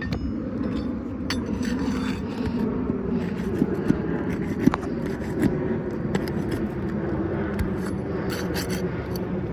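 Asphalt shingle scraping and rubbing against the surrounding shingles as a replacement is worked into place under the course above. There are a few sharp clicks around the middle, over a steady low rumble.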